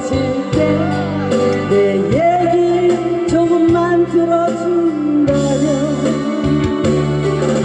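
A woman singing a Korean song into a microphone over an instrumental backing track, holding long notes.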